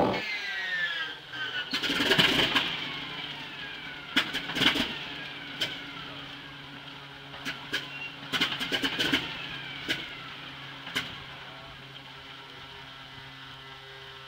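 Antonov An-2 biplane's radial engine being started: it turns over with a steady hum while single cylinders fire in irregular coughs and pops, without catching and running. Falling whines come near the start.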